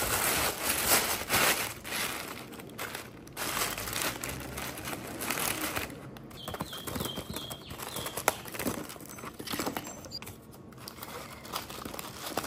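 Tissue paper rustling and crinkling as it is crumpled into a wicker basket, loudest in the first few seconds, then lighter crinkling of chocolate-bar wrappers as they are packed in. A sharp click about eight seconds in is the loudest moment.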